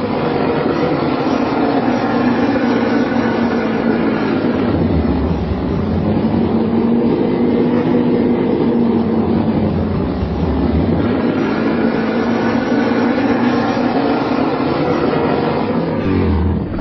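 Custom-made Gwythaint creature sound effect: one long, loud, continuous rumbling cry with wavering pitch, running unbroken and cutting off just after the end.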